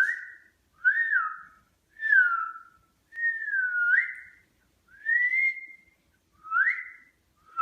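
Whistling: a run of about seven short whistled phrases, roughly one a second, each gliding in pitch. Some fall, some rise, and a longer one in the middle dips and then rises.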